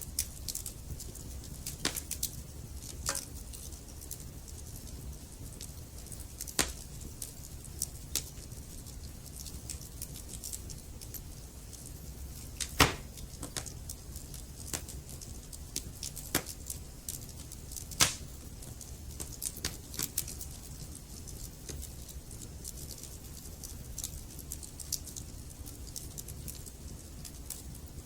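Wood fire crackling in a fireplace: a steady low rush from the flames with irregular sharp pops and snaps from the burning logs, two of them much louder than the rest.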